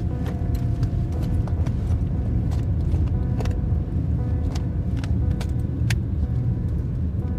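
Steady low road and engine rumble inside a moving car's cabin, with scattered light clicks and rattles of things being handled in a handbag.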